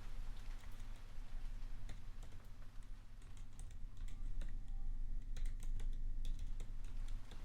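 Typing on a computer keyboard: quick, irregular runs of key clicks, busier in the second half, over the steady hiss of rain.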